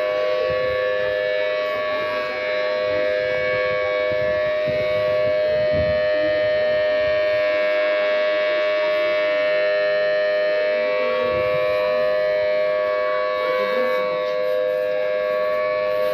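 Outdoor civil-defense warning siren sounding a steady chord of held tones that does not rise or fall.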